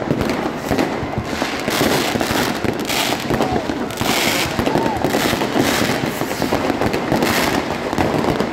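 Fireworks going off close by without pause: rockets bursting overhead and firecrackers popping, a dense run of bangs and crackling.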